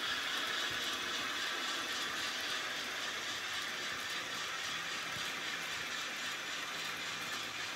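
N scale model train running along its track, a steady whir of its wheels and motor.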